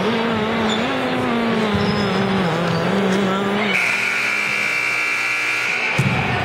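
Gym scoreboard horn sounding the end of the game: a steady buzzing tone held for about two seconds, starting a little past halfway. Before it, a continuous droning note that wavers in pitch.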